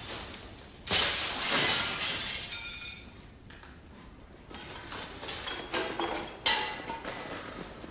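Glass and objects being smashed, with a loud crash about a second in that clatters on for a couple of seconds, and another sharp crash near the end.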